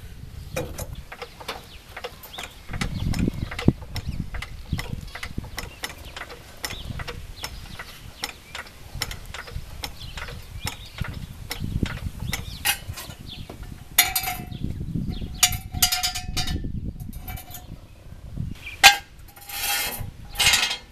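Hydraulic floor jack being pumped to lift a truck's rear axle: a long run of quick, even clicks, with a dull push on each handle stroke. From about two-thirds of the way through come louder metal clanks and rattles.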